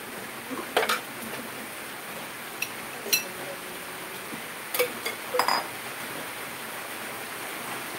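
Steady hiss of heavy rain, with several sharp clinks of kitchenware at about one, three and five seconds in.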